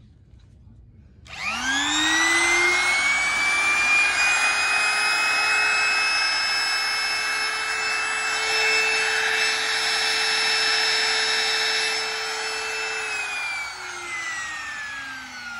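Makita trim router's electric motor switched on about a second in, spinning up with a rising whine and then running steadily at high speed. About two and a half seconds before the end it is switched off and the whine falls in pitch as the motor coasts down.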